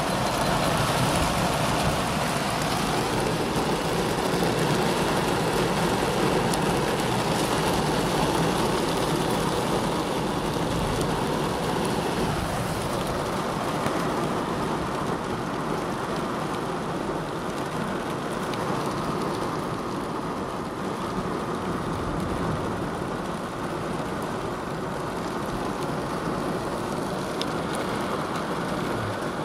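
Heavy, wind-driven rain pounding on a car's roof and windows, heard from inside the car as a dense, steady rush. It eases a little after about twelve seconds.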